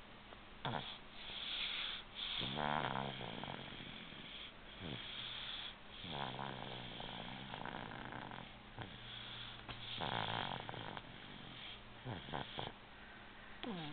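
Snoring: slow, rattling breaths, roughly one every three to four seconds, with hissy breathing between them.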